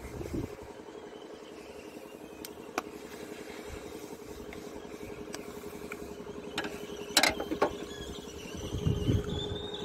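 Sharp plastic clicks and snaps as the excavator's air cleaner sensor housing is handled and worked open, the loudest cluster about seven seconds in, over a steady mechanical hum.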